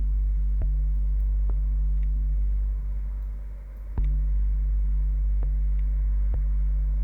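Low droning intro music: a deep synth bass and held chord, with light ticks, fading a little and swelling again about four seconds in.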